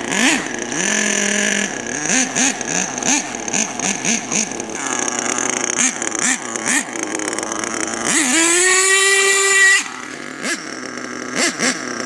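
HPI Savage X 4.6 nitro RC monster truck's small 4.6 cc two-stroke glow engine revving in short, repeated throttle blips. About eight seconds in it is held at full throttle for about a second and a half in a loud, high-pitched wail, then drops back to short blips.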